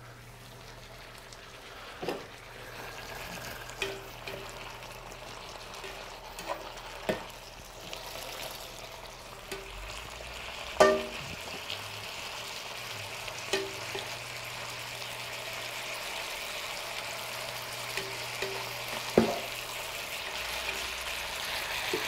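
Sliced mushrooms and carrots sizzling in a hot pan with a little water, the sizzle growing steadily louder. A utensil knocks against the pan now and then as the vegetables are stirred.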